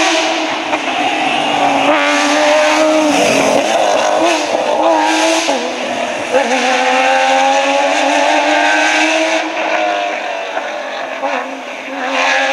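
Porsche 911 GT3 rally car's flat-six engine at full racing revs. Its pitch swings up and down through gear changes and braking in the middle, then climbs steadily as the car accelerates away, fading near the end.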